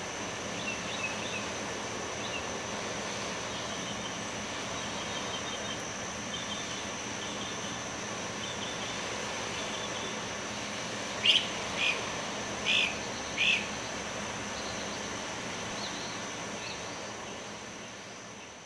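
Outdoor nature ambience of birds chirping over a steady high insect drone and background hiss, with four loud bird calls in quick succession about halfway through. It fades out at the end.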